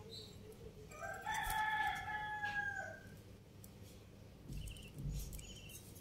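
A rooster crowing once, a single long call of about two seconds starting about a second in.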